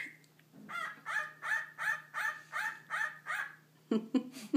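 A pet cockatiel calling in a run of about eight short, harsh calls, about three a second, followed near the end by a few lower, shorter sounds.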